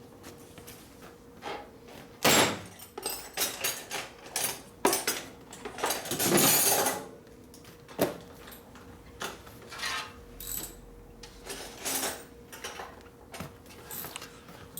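Metal tools and parts being handled on a workbench: scattered clicks and clanks, a loud clank about two seconds in, and a longer rattle around the middle.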